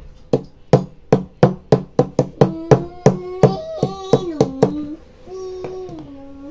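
A power MOSFET gripped in pliers is bashed against a hard block again and again to crush its plastic package: about fourteen sharp knocks, roughly three a second and quickening, stopping about two-thirds of the way through. A child's voice joins partway through and holds a note near the end.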